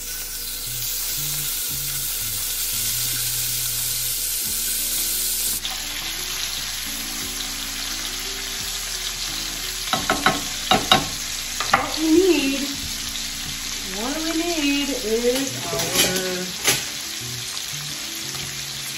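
Ground beef sizzling as it fries in beef-bacon grease in a pan, a steady crackling hiss. In the second half a spatula clicks and scrapes against the pan as the meat is stirred.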